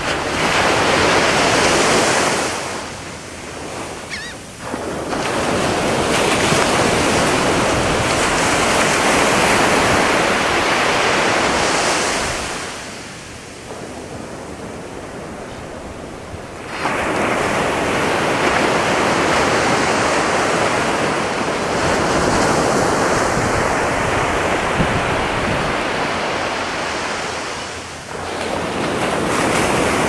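Atlantic surf breaking on a sandy beach: waves crash and wash up the shore in long surges, with a lull about three seconds in, a longer lull around the middle, and a brief dip near the end.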